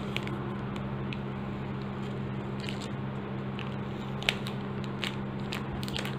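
Fingers picking at and crinkling a thin plastic pouch to open it, with scattered sharp crackles, the loudest about four seconds in. A steady low hum runs underneath.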